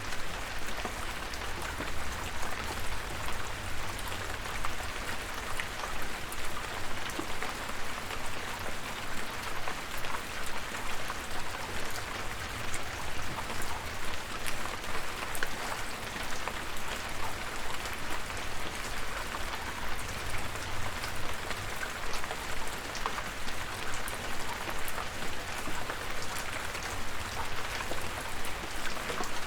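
Steady rain falling, with many small drops ticking sharply on a hard surface over a low rumble.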